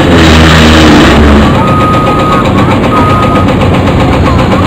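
Heavy hydraulic excavators with demolition shears breaking up a concrete overpass: diesel engines running under load over a dense, rapid clatter of concrete and steel. It swells louder for about the first second as an engine surges. Two short high squeals come near the middle.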